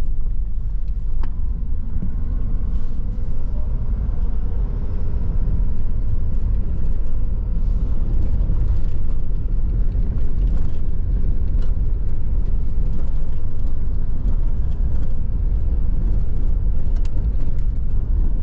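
Vehicle driving: a steady low rumble of engine and road noise, with a few light clicks and rattles.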